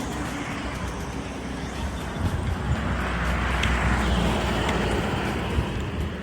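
Road traffic, with a vehicle passing close by: it grows louder to a peak near the middle, then fades.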